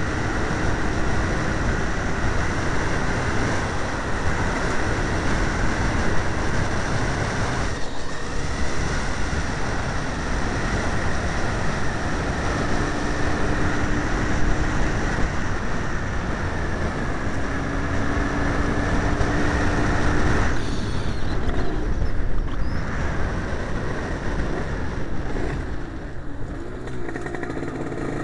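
Derbi Senda moped's two-stroke engine with an 80cc kit, running as the bike is ridden along a street. The sound eases off briefly twice, about 8 seconds in and again about 21 seconds in.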